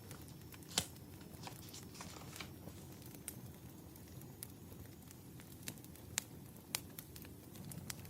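Burning firewood crackling: irregular sharp pops and snaps over a low steady rumble, the loudest pop about a second in.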